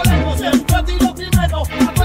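Reggaeton song playing: a steady beat of deep kick drums that drop in pitch, over a low bass line and synth.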